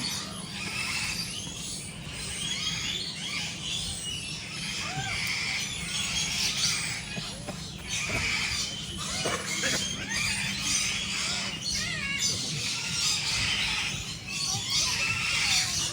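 Many birds calling at once: a dense chorus of shrill, overlapping squeals and squawks with wavering pitch.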